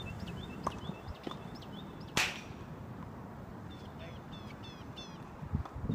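Tennis balls struck by rackets during a rally: fainter, distant pops under a second and just over a second in, then a loud, sharp pop close by about two seconds in. Birds chirp throughout, with a quick repeated run of chirps late on.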